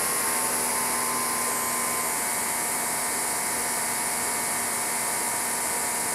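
Greenworks 2300 PSI electric pressure washer running with the trigger held, its motor and pump holding a steady pitch over the hiss of water spraying from a 40-degree nozzle, at just under 1400 PSI.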